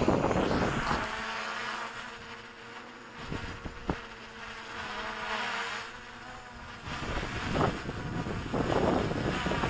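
DJI Mavic Pro quadcopter's propellers giving a steady buzzing hum from close by. Wind gusts on the microphone at the start and again over the last few seconds, with a single click near the middle.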